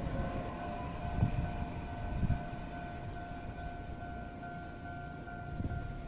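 Japanese level crossing warning bell ringing with a steady electronic tone, over the fading low rumble of an electric train moving away, with two brief wheel thumps in the first few seconds.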